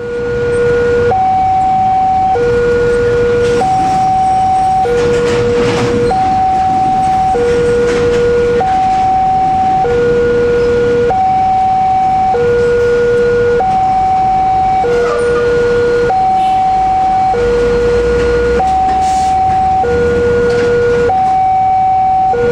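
Indonesian railroad crossing warning alarm sounding a two-tone electronic signal. A lower and a higher tone alternate steadily, each held for about a second, warning that a train is coming as the crossing closes.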